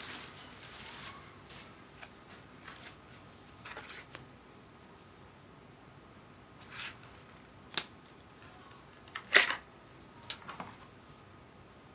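Handling noises: scattered light clicks and brief rustles. There is a sharp click about eight seconds in, and the loudest short knocks come about a second and a half later.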